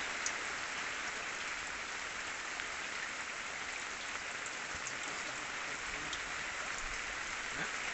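Steady rain falling, an even hiss with a few faint scattered drop ticks.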